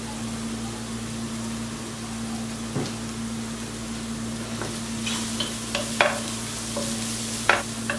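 Chopped onions, curry leaves and green chillies sizzling steadily in oil in a non-stick pot, over a constant low hum. From about five seconds in, a wooden spatula stirs them, scraping and knocking sharply against the pan several times.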